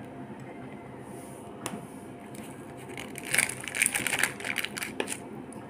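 A few light clicks, then about two seconds of crinkling and crackling of wrapping from about three seconds in, as a homemade chocolate bar is picked up off its butter paper.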